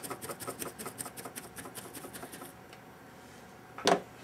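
Rapid, even run of light clicks or ticks from small bench tools being handled, about six or seven a second for roughly two and a half seconds, while solder wick is cut off its roll for desoldering the GPU pads. A single short knock comes near the end.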